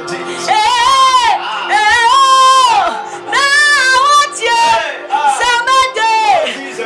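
A woman singing a gospel worship song in long, impassioned phrases with a wavering, bending pitch, separated by short breaths, over a steady sustained backing.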